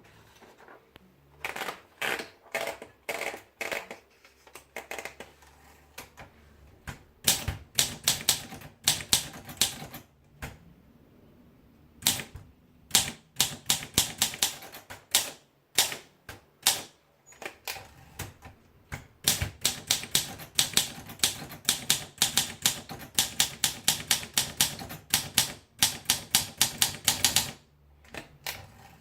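Olympia SM3 Deluxe manual portable typewriter being typed on, in runs of rapid key strikes separated by short pauses of a second or two.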